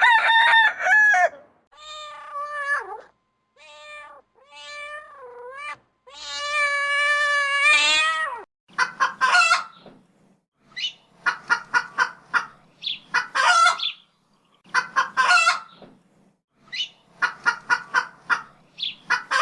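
A cat meowing about five times, the calls rising and falling in pitch, followed by clusters of quick, repeated calls about every two seconds.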